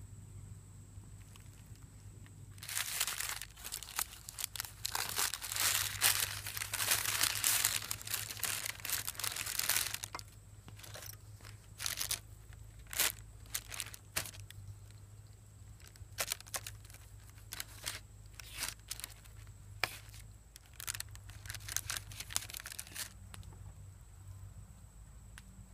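Stiff white butcher paper crinkling loudly for about seven seconds as it is opened out from around a beef roast, followed by scattered short rustles and clicks of the paper and knife as the meat is cut into chunks on it.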